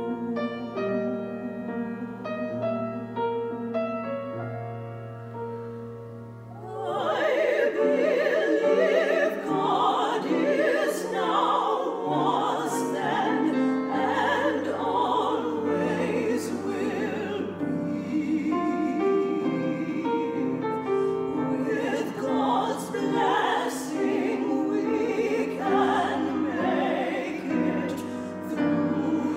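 Grand piano playing a quiet, slow introduction; about seven seconds in, three female voices come in singing together in harmony with vibrato over the piano, noticeably louder.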